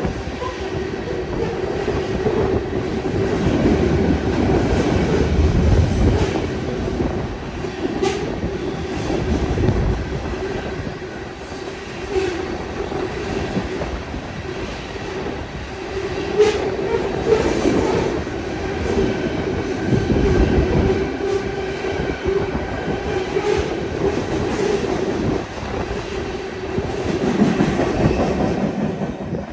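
Open-top freight cars of a freight train rolling past close by, steel wheels rumbling and clicking over the rail joints with a steady wheel squeal. The last car passes near the end.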